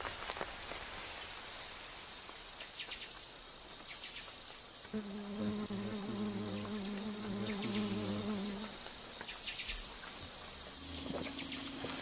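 Rainforest insects making a steady high-pitched buzz. From about five seconds in until almost nine seconds a frog gives a low, wavering call.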